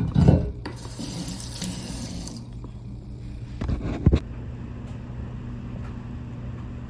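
Kitchen tap running for a couple of seconds, with a few knocks of items being handled, over a steady low hum.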